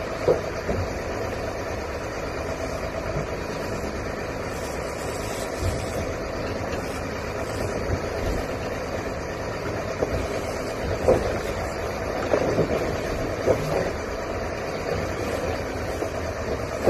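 Fishing boat's engine running steadily while the boat is underway in choppy water, with a few sharp knocks standing out, several close together about two-thirds of the way through.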